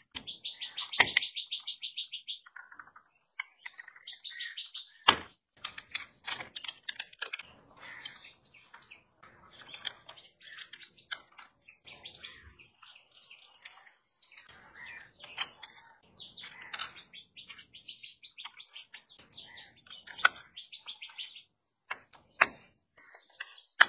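Scattered sharp clicks and knocks of a screwdriver and hands on the metal casing and pulley of an old car alternator being taken apart. Over them come repeated short bursts of rapid, high chattering trills.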